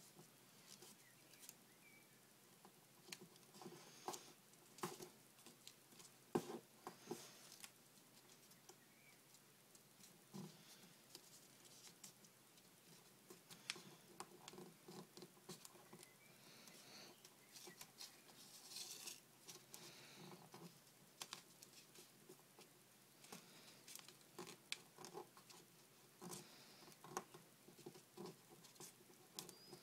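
Faint crinkling and rustling of a sheet of paper being folded and creased by hand, with scattered small irregular clicks and taps.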